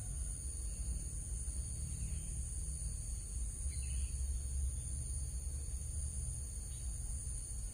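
Outdoor ambience: insects keep up a high, steady drone, over a low uneven rumble. There is a brief faint chirp about four seconds in.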